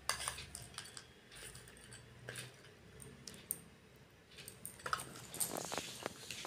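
Faint, scattered clicks and light taps of a metal spoon against a glass as chopped cashews and almonds are sprinkled onto an ice-cream topping, coming thicker in the last couple of seconds.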